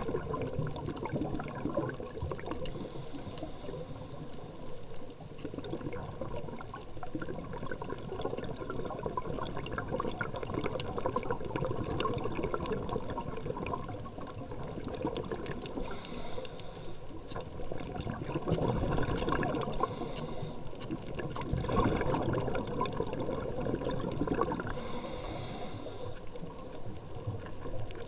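Muffled underwater noise heard through a camera's waterproof housing: a steady crackling water sound with a few brief louder hissing rushes spread through it.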